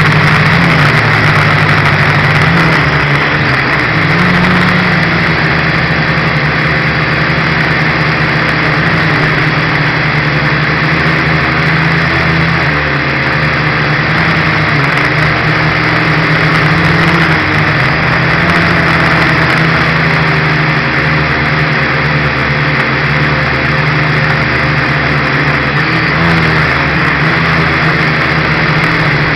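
Dromida Ominus FPV quadcopter's motors and propellers buzzing steadily and loudly close to its onboard microphone, the pitch wavering slightly as it flies.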